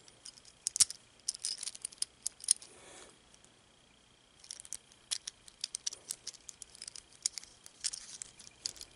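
Plastic pieces of a disassembled original GAN 3x3 speedcube clicking and rattling in the fingers as a coloured insert is fitted into and out of its frame. Quick clusters of small clicks, with a pause of about a second and a half a few seconds in.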